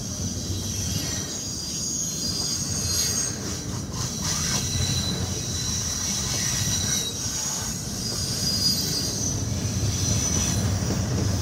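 Double-stack intermodal train's well cars rolling past close by: a steady low rumble of wheels on rail, with a high-pitched squeal that wavers and comes and goes.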